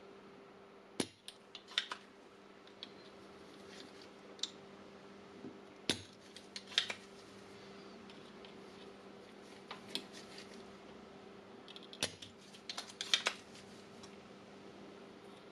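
Spring-loaded desoldering pump (solder sucker) being cocked and fired over a soldering iron, giving sharp clicks and snaps every few seconds, with a close cluster near the end. A faint steady hum runs underneath.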